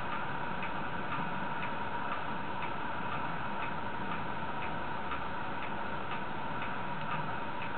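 Faint, even ticking, about two ticks a second, over a constant background hiss and hum.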